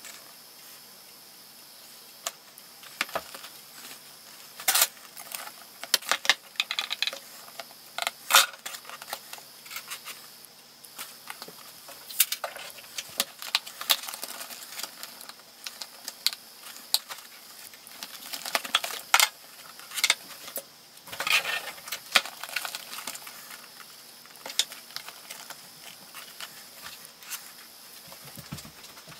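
Irregular clicks, taps and short rattles of small parts being handled as a mast is fitted into its mounting in a model ship's hull.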